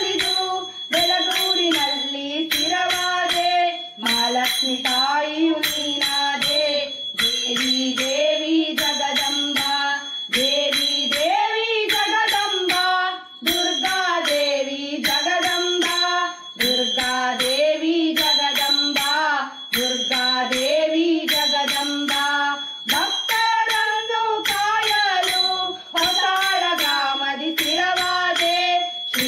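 Women singing a Kannada devotional bhajan to the goddess, a melodic chant with pitch glides and short breath pauses every few seconds, over a steady percussion beat.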